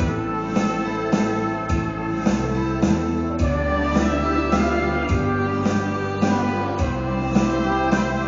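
Instrumental backing music with guitar and keyboard over a steady beat, about two beats a second: a break between sung lines with no voice.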